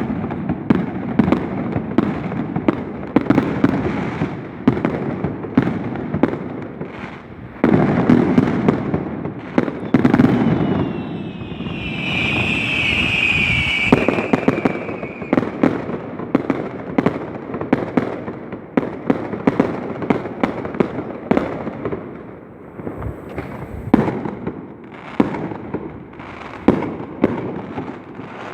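A large string of firecrackers going off in a long, dense run of rapid loud cracks and bangs. About halfway through, a high whistle sounds for a few seconds, falling slightly in pitch.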